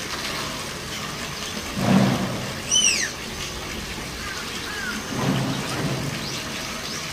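Lowland tapir vocalising over a steady rain-like hiss: a low huff about two seconds in and a longer one past the halfway mark, with a short high squeal that arches up and down just after the first.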